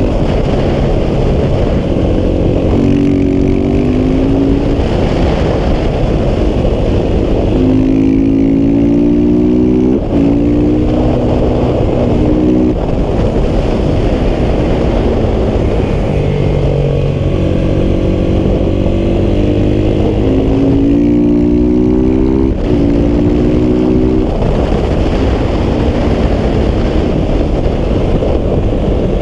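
KTM 690 SMC R's single-cylinder engine through a Wings aftermarket exhaust, ridden hard: it revs up again and again with rising pitch, snaps down at quick gear changes, drops back off the throttle into corners and pulls hard again.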